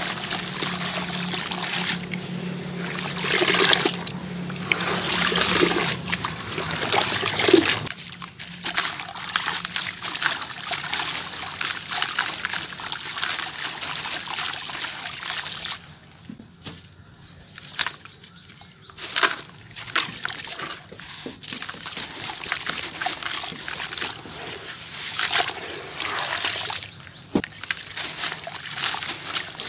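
A soaked, gritty sand-cement lump crumbled by hand over a bucket of water, with showers of grit and crumbs falling and trickling into the water in a dense crackly hiss. The sound goes quieter for a few seconds a little past the middle, then the crumbling picks up again.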